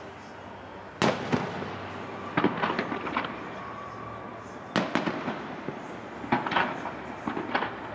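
Aerial firework shells bursting: about five sharp booms one to two seconds apart, several followed by quick crackles. The loudest are about a second in and near the middle.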